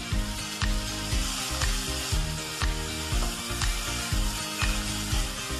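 Small pieces of chicken sizzling as they fry in hot oil in a pan, with background music carrying a steady beat of about two thumps a second.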